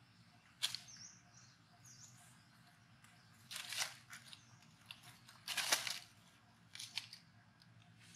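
Dry leaf litter rustling and crackling in four short bursts as macaques move over it, the loudest a little before six seconds in. Faint high chirps sound between one and two seconds in.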